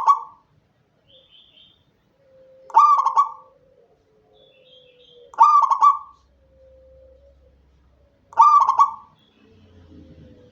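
Zebra dove cooing: a short, stuttering coo repeated about every three seconds, three times in full.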